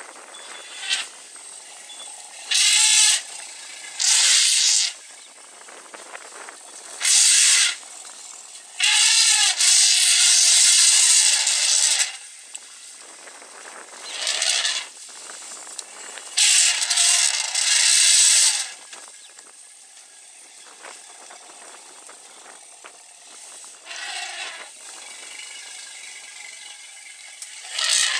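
Herd of African elephants trumpeting in repeated loud blasts, each half a second to three seconds long, the longest starting about nine seconds in, as they cluster around a newborn calf.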